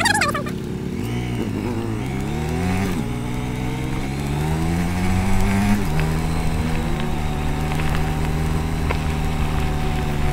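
Honda motorcycle engine under way, revs climbing and dropping at gear changes about three and six seconds in, then holding a steady cruise.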